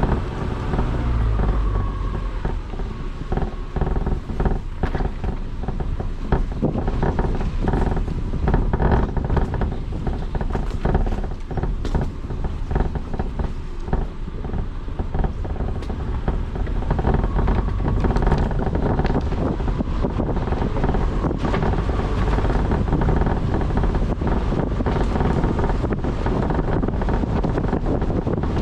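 A car driving: steady engine and road noise with wind on the microphone. Many short knocks and clicks come through the middle stretch.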